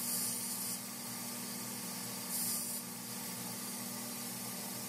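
Belt grinder with a 10-inch contact wheel running with a steady hum, while a steel knife blade is hollow-ground on it: two brief hissing touches of the blade against the belt, one at the start and one about two and a half seconds in.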